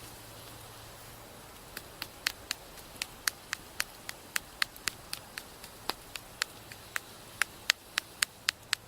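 Salt being added to vegetables: a run of sharp, separate clicks, roughly four a second and unevenly spaced, starting about two seconds in.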